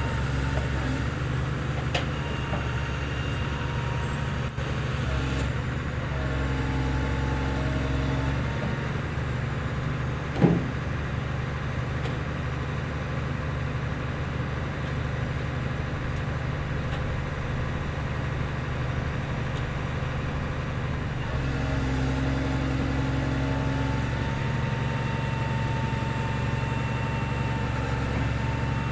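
Hitachi ZX330 excavator running, its diesel engine holding a steady note while a hydraulic whine comes and goes. About ten seconds in there is one brief, sharp, loud sound that falls in pitch.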